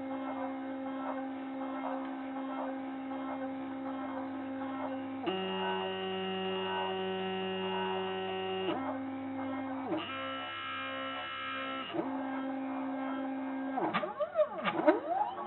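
Stepper motors of a DIY wooden-frame GRBL CNC mini router running: steady whining tones that jump to a new pitch every few seconds as the machine changes moves, over a steady low hum. Near the end the pitch sweeps quickly up and down several times as the motors speed up and slow down.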